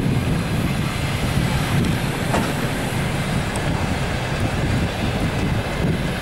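Passenger train coaches rolling past close by: a steady rumble of wheels on the rails.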